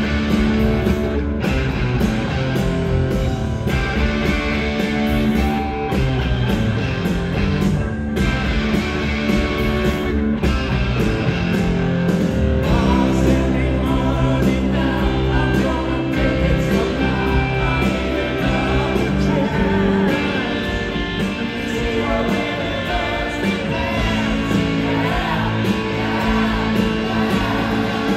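Live rock band playing loud, with distorted electric guitars, electric bass and drums. A man's singing comes in about halfway through.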